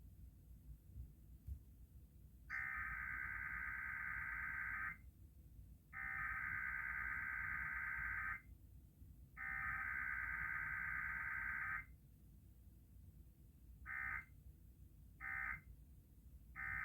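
Emergency Alert System SAME data bursts: three long bursts of the header's rapid two-tone digital warble, each about two and a half seconds, then three short end-of-message bursts about a second and a half apart, the data-only form of a required weekly test.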